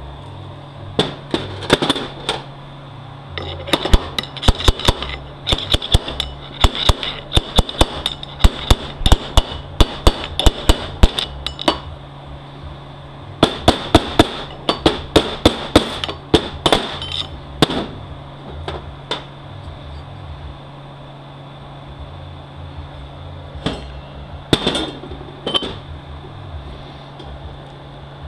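Hammer striking a bushing driver to drive a bushing into a 6L80E transmission part: quick runs of sharp metal-on-metal taps, several a second, in two long bursts, then a few last taps near the end.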